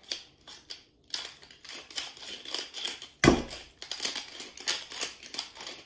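Hand-twisted wooden salt mill grinding salt over a bowl: a quick, scratchy crunching in rapid strokes, with one louder knock about halfway through.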